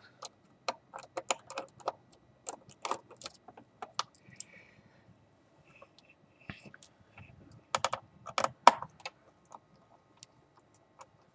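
Small screwdriver working the metal hinge screws of a laptop chassis: scattered sharp clicks and light metallic taps, with a denser cluster of louder clicks about three-quarters of the way through.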